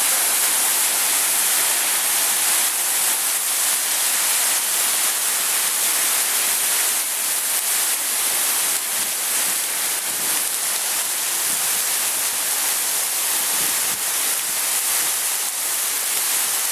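Waterfall pouring steadily: a constant, even rush of falling water, strong in hiss.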